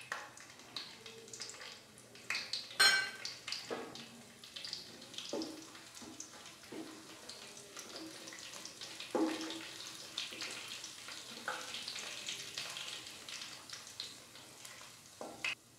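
Whole spices (fennel seeds, bay leaves, cinnamon and cardamom) sizzling and spluttering with small pops in hot sesame oil in a stainless steel kadai. A wooden spatula stirs them and knocks against the pan a few times, loudest about 3 s and 9 s in. The spluttering is the sign that the spices are tempering in oil hot enough to fry them.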